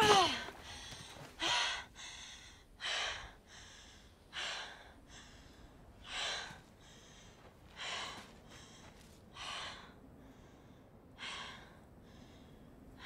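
A heavy backpack drops to the ground with a thud and a falling groan. Then a woman breathes hard and out of breath, with loud gasping breaths about every one and a half seconds and quieter breaths in between.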